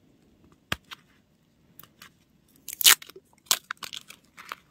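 Clear tape and tape-coated paper being handled while a paper squishy is wrapped: scattered sharp clicks and crinkles, with one short loud rasp about three seconds in.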